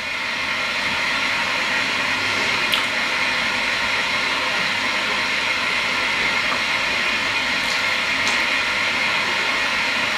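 Steady, even rushing hiss of background noise, swelling a little in the first second and then holding level.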